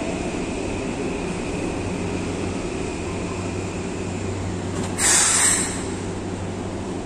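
A Keikyu electric train standing at a platform, its equipment giving a steady low hum, with a faint high tone that fades away midway. About five seconds in comes a short, loud burst of air hiss.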